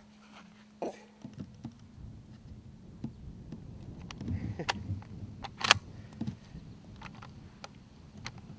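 Scattered light clicks and knocks of handling noise, the sharpest a little past the middle, over a faint steady low hum.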